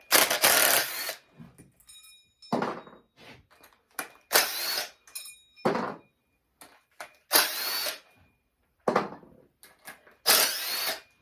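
Handheld power driver running the four bolts out of a stator on a Harley Sportster motor sprocket, in a series of short bursts about a second each, with brief pauses between.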